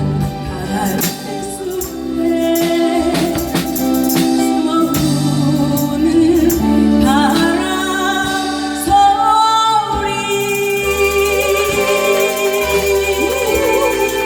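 A singer with a live band performing a Korean ballad, the voice holding long sung notes over bass and drums.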